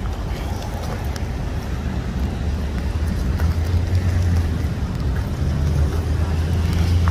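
Vehicle engines and traffic on a wet road: a low, steady rumble that grows louder from about three seconds in.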